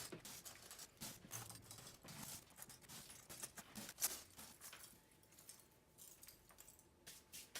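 Small pieces of cut wicker dropped and pressed into silicone molds: scattered light taps and clicks, with one sharper tap about four seconds in.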